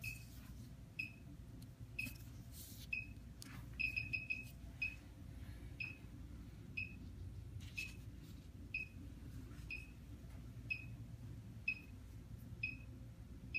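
Electrocardiograph beeping a short, high tone about once a second, the heartbeat tone keeping time with the patient's pulse (about 60 a minute) while the 12-lead tracing is recorded. Several quick beeps come in a run about four seconds in, over a low steady hum and a little rustling.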